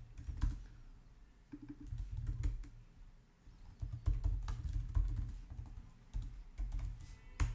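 Typing on a computer keyboard: irregular keystrokes, with one sharper, louder key click near the end.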